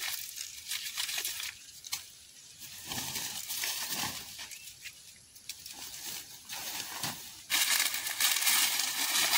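Dry corn husks crackling and tearing as an ear of dry field corn is husked by hand, with rustling of the woven sack as the ear goes in. Near the end the rustling grows louder and denser as a dry corn stalk and its leaves are grabbed.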